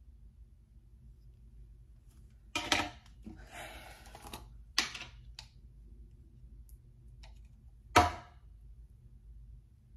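A few sharp clicks and knocks, like small objects being handled and set down on a hard surface, with a brief rustle between them. The loudest knock comes about eight seconds in, over quiet room tone.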